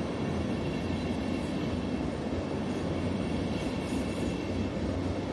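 Railjet passenger coaches running past along a station platform: a steady rumble of wheels on rail with an even low hum.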